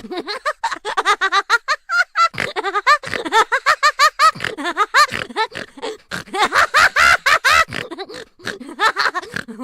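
Cartoon laughter sound effect: a long, high-pitched run of rapid 'ha-ha' pulses, about five a second.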